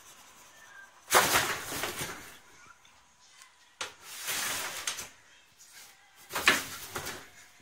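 A cat inside a cardboard box hissing three times, each hiss sudden and about a second long, as a wooden spoon is poked in at it.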